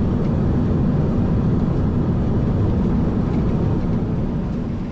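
Boeing 737-700 heard from the cockpit while slowing on the runway after landing: a loud, steady low rumble of engines and rolling wheels that eases off near the end as the jet decelerates.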